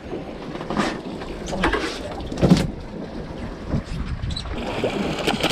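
Fishing boat at sea: wind and water noise with scattered sharp knocks, irregularly spaced.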